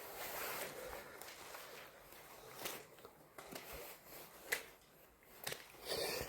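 Footsteps scuffing and crunching across a gritty floor, with several sharp clicks and knocks in the second half.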